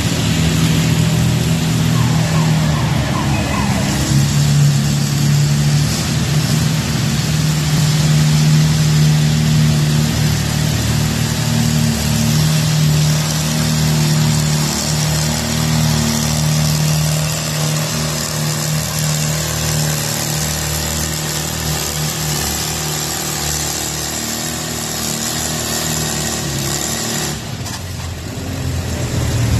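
Farmall Super C's four-cylinder gasoline engine running hard at a steady speed while pulling the weight sled. It eases off near the end.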